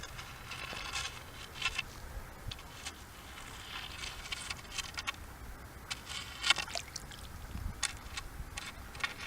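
Shallow water being stirred up while a coin is fished out of it: irregular little splashes and dribbles, with a few sharp clicks, the loudest about six and a half seconds in and again near the end.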